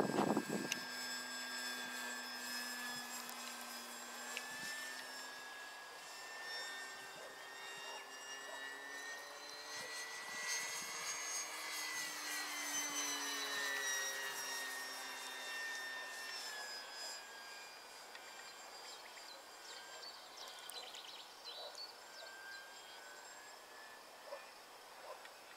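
Electric motor and propeller of a ParkZone Focke-Wulf RC warbird whining in flight. The pitch rises and falls as the plane passes about halfway through, where it is loudest, and the whine then fades as it flies off.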